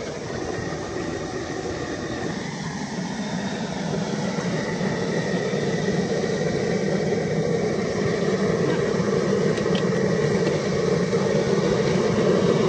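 Steady roar of the propane burner under a crawfish boil pot, growing gradually louder toward the end.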